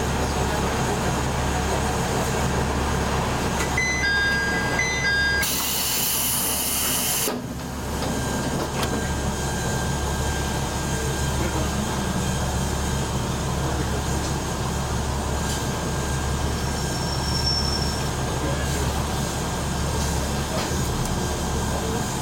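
Diesel railcar engine idling steadily while the train stands at a station. About four seconds in, a short electronic chime of a few tones sounds, followed by a two-second hiss of released compressed air.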